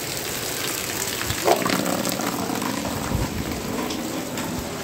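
Heavy rain mixed with hail, a dense patter with many sharp ticks of stones striking a hard surface. There is a louder knock about a second and a half in.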